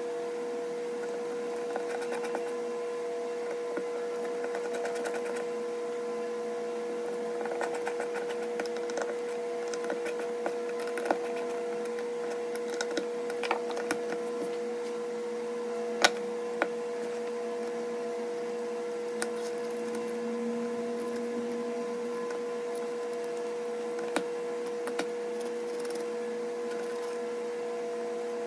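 A steady mechanical hum with one constant tone runs throughout, under scattered light clicks and knocks of hand tools and wood as a toggle clamp is screwed by hand onto a plywood sled. One sharper click stands out about sixteen seconds in.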